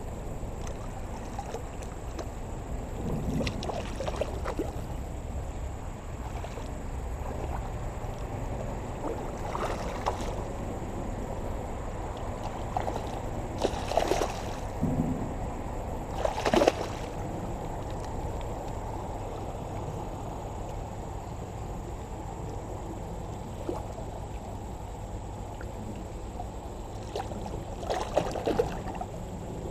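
Hooked common carp thrashing and splashing at the surface of shallow creek water during the fight, in a series of splashes, the loudest about halfway through and another burst near the end, over a steady rush of moving water.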